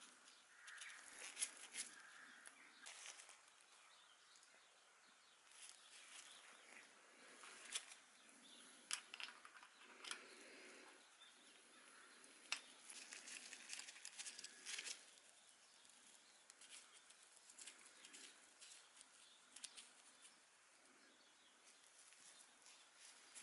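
Faint, scattered light clicks and rustling, with a few sharper ticks around the middle.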